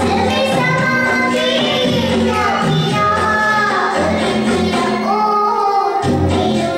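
A young girl singing a Hindi film song into a microphone, holding long wavering notes over a backing track with a steady bass line. The bass drops out for about a second shortly before the end, then comes back.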